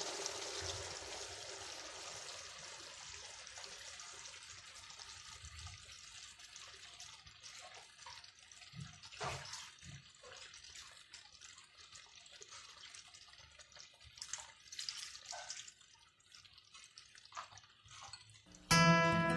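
Coconut milk pouring into a wok of simmering fish curry, a steady liquid hiss that fades over the first few seconds; then the curry simmers with scattered soft bubble pops and plops. Acoustic guitar music comes in near the end.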